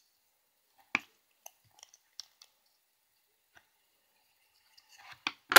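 Light clicks and taps of a hard plastic Transformers action figure and its clip-on guns being handled. There is one sharper click about a second in, a few faint ticks after it, and a louder click near the end.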